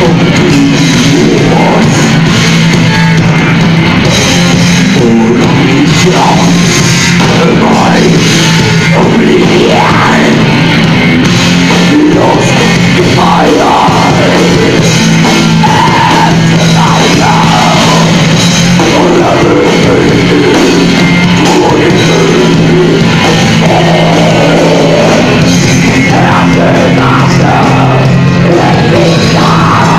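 Doom metal band playing live: distorted guitar and bass holding long low notes over a drum kit, with a woman singing over them. The recording is very loud and saturated, near full level.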